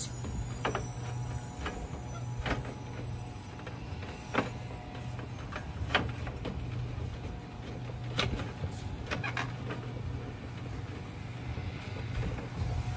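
Mercedes Sprinter grille bezel being pressed on by hand, its snap clips clicking into place: irregular sharp clicks and taps every second or two over a steady low hum.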